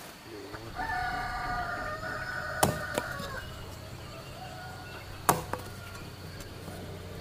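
A machete chopping cassava stems on a wooden block: two sharp chops about two and a half seconds apart, with a lighter one just after the first. A rooster crows once, starting about a second in and lasting about two and a half seconds.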